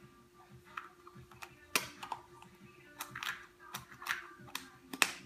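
Plastic toy dinosaur eggs clicking and clacking as they are handled and pried open: about ten sharp, irregular clicks over a faint steady hum.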